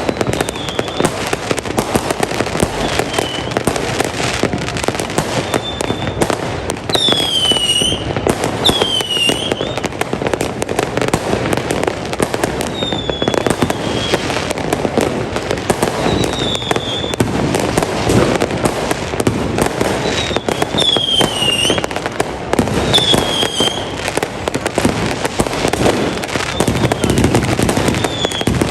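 A dense, continuous barrage of fireworks bangs and crackles, with several short whistles falling in pitch from whistling fireworks.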